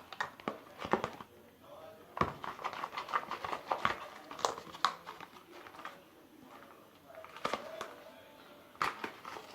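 Homemade glue slime being mixed and squished by hand, with irregular wet clicking and crackling that is busiest in the first half.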